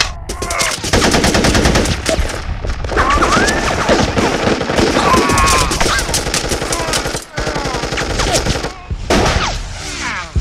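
Rapid automatic gunfire: long strings of shots in quick succession, broken by a few brief pauses.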